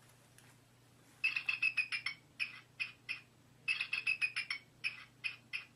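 Recorded bald eagle call played through the small speaker of a bird toy: high, thin chirping notes, twice a quick run followed by a few slower single chirps.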